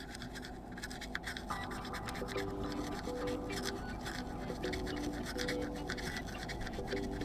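Small cleaning brush scrubbing the charging contacts inside a plastic earbud charging case, a quick run of light scratchy strokes. Soft background music with a simple melody comes in about two seconds in.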